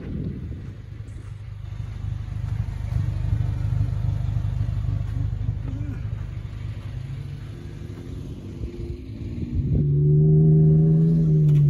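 Toyota Fortuner SUV engine running with a low rumble, then rising in pitch over a few seconds and holding a loud, steady note as it pulls.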